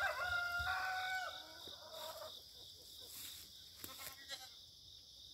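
A chicken's long drawn-out call, one held note lasting just over a second, followed by a shorter, fainter call about two seconds in.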